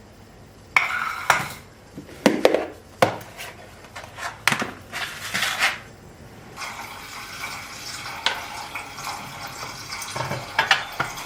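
Kitchenware being handled: dishes and utensils clinking and knocking in a string of sharp separate hits, with a steady hiss setting in about halfway through.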